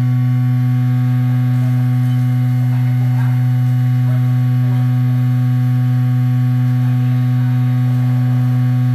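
Vibratory stress relief exciter running at a steady speed, a loud, unchanging low hum with an overtone an octave above it. A stress relief vibration treatment is under way on a metal workpiece.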